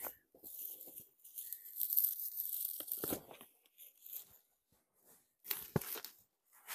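Dry brush and grass rustling and crunching in irregular bursts, with two dull thumps about three and six seconds in. Near the end, a shrub's branches are pulled by hand.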